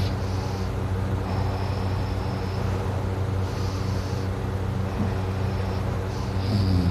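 A sleeping person breathing heavily, in and out every second or two, over a steady low hum. A louder snore starts near the end.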